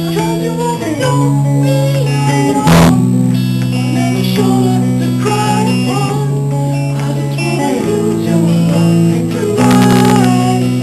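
A song with guitar playing held chords and a man singing a melody over them, with sharp strums about three seconds in and again near the end.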